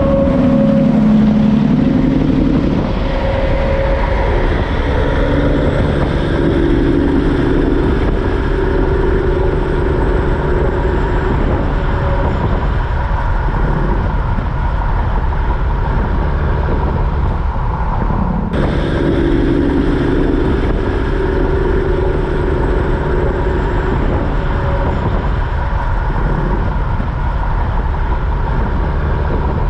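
Heavy trucks passing on a road: diesel engines running with tyre and road noise. The sound cuts off suddenly about two-thirds of the way through and picks up again with another passing truck.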